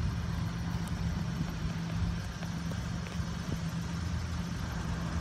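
Mitsubishi Minicab kei truck's small 660 cc three-cylinder engine idling steadily.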